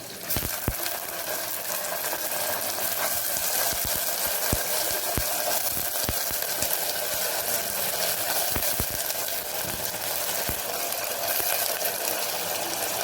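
Green peas frying in hot oil in a cooker, a steady sizzle, with scattered soft knocks from the pan being stirred.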